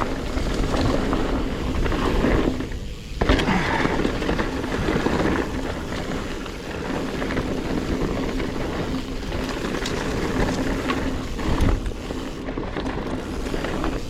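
Specialized Stumpjumper Evo Alloy mountain bike riding down singletrack: a steady rush of wind and tyre noise, with repeated knocks and rattles from the bike over bumps and rocks.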